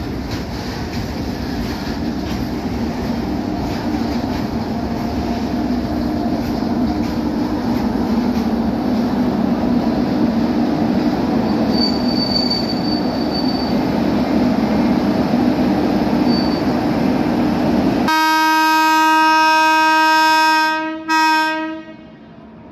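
A train rolling through the station with a steady rumble, then, about eighteen seconds in, an Indian Railways electric locomotive blows its horn in one long blast of about three and a half seconds, with a brief break near its end.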